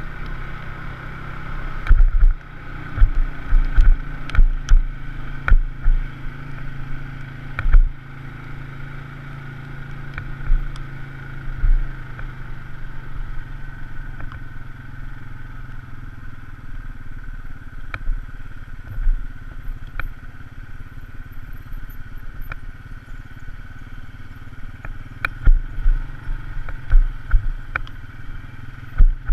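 Polaris RZR side-by-side engine running steadily on a rough trail, with repeated sharp thumps and knocks from the machine jolting over the ground, heaviest in the first several seconds and again near the end.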